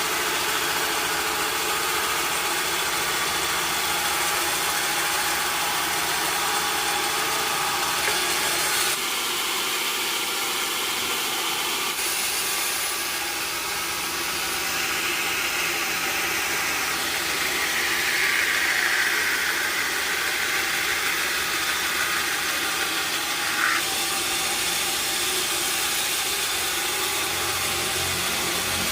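Sawmill machinery running steadily with a constant mechanical noise, a higher-pitched tone swelling and fading in the middle, and a single sharp click about three-quarters of the way through.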